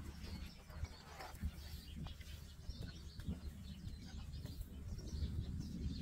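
Outdoor ambience: scattered bird chirps over a low, uneven rumble, with no clear cattle calls.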